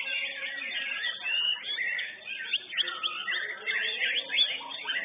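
White-rumped shamas (murai batu) in song competition, several singing at once: a dense, continuous tangle of whistles, chirps and quick rising and falling notes.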